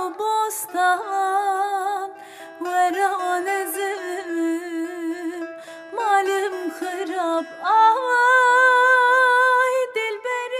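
Background music: a solo voice singing a melody with heavy vibrato and ornamented, wavering pitch, ending in one long held note before fading out.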